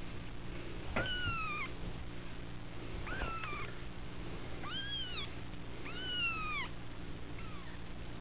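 Young kittens mewing: four high mews a second or two apart, each rising then falling in pitch, and a fainter one near the end.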